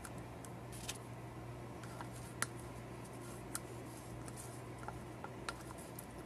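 A few light, sharp clicks of a small clear plastic mixing cup being handled, the sharpest about two and a half seconds in, over a faint steady low hum.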